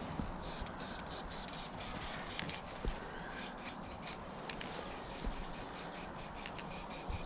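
Spray paint artwork being worked by hand: a quick, irregular series of short hissing strokes, a few each second.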